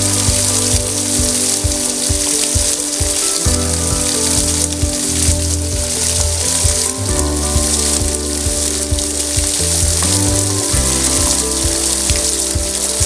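Heavy rain pouring down onto garden plants and ground, a dense, steady hiss. Background music with sustained chords and bass notes runs under it.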